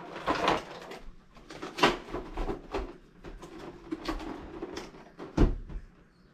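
Toy packaging being handled and put away: a clear plastic tray crinkling and a cardboard box being moved, with irregular knocks. The loudest knocks come about two seconds in and again near the end, the second with a dull thud as the box is set down.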